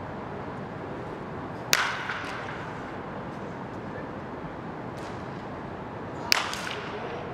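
Two sharp cracks of a wooden bat striking a baseball in a netted batting cage, about four and a half seconds apart, each with a short ringing tail. A fainter click falls between them, over steady room noise.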